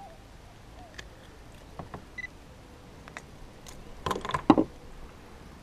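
Fishing gear being rummaged through and handled aboard a kayak: a few scattered small clicks, then a short burst of louder knocks and rattles about four seconds in.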